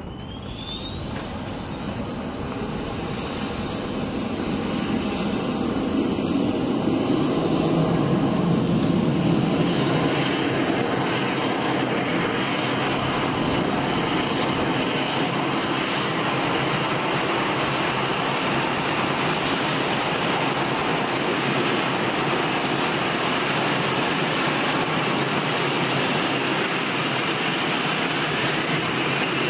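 KC-135 Stratotanker's turbofan engine spooling up on start: a whine climbs steadily in pitch over about the first fifteen seconds while the engine noise swells and then settles into a steady loud run. Another rising whine begins near the end.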